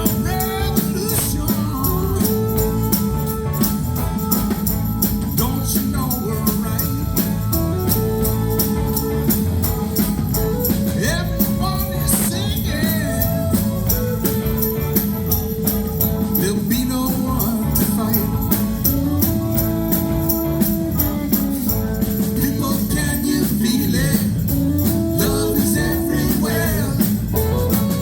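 Live rock band playing an instrumental passage: held, sliding lead lines over bass and drums, with a steady tambourine or cymbal beat ticking along.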